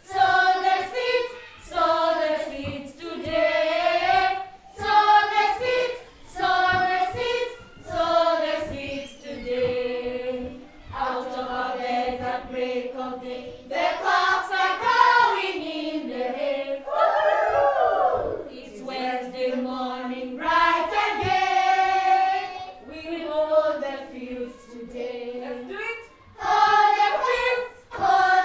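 A group of young children singing a song together in short phrases, with some long held notes.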